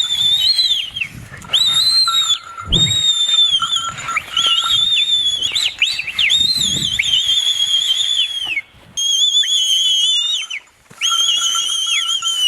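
Loud, high-pitched whistling used to rouse a Jallikattu bull: long warbling blasts, several overlapping at times, each dipping in pitch as it ends, with short breaks between. A low thud comes nearly three seconds in.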